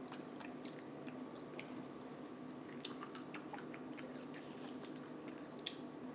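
People chewing food, with many small irregular wet mouth clicks and smacks and one sharper click about five and a half seconds in, over a faint steady hum.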